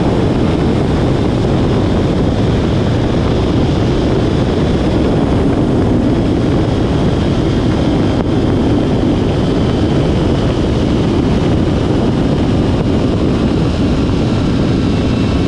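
Steady rush of wind over the microphone as a rider slides at high speed down a steel zipline cable, with a faint, steady high whine from the trolley's pulleys running along the cable.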